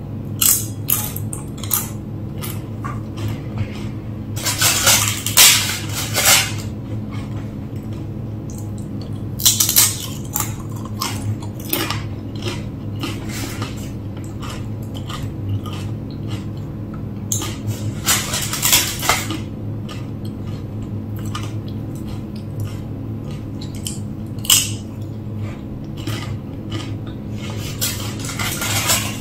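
Plastic takeaway food containers and a utensil being handled during a meal: scattered light clicks and knocks, with a few short noisy bursts of handling or crunching, over a steady low hum.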